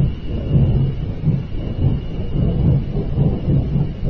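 A loud, low rumbling roar of unknown origin that swells and fades unevenly, likened to a giant flame; a faint thin high whine runs above it.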